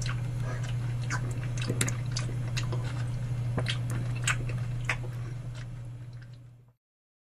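Water dripping and ticking into a bathroom sink over a steady low hum. It fades and cuts off abruptly near the end.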